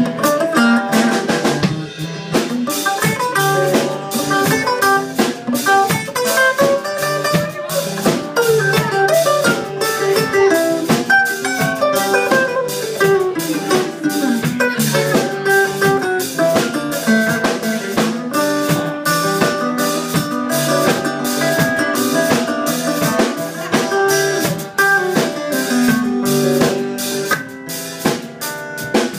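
Live band playing an instrumental break: a drum kit keeps a steady beat with rimshots under a lead guitar line whose notes bend up and down in pitch.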